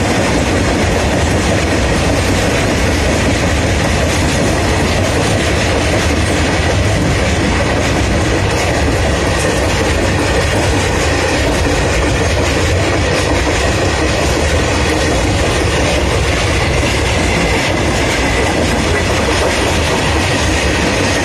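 Freight train wagons rolling past at speed, their wheels clattering over the rail joints in a loud, steady, unbroken run.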